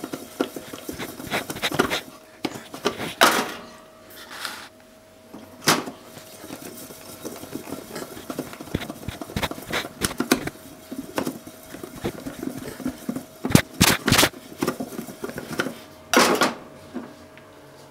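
Potato chunks tumbling inside a lidded metal pot shaken by hand, the glass lid and pot clattering in repeated bursts of knocks, with several harder strikes. A faint steady hum runs underneath.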